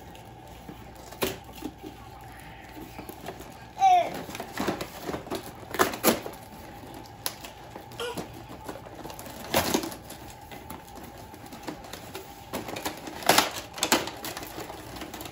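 Cardboard and plastic toy packaging being handled and pulled apart by hand: irregular clicks and rattles, a few of them sharper, at scattered moments.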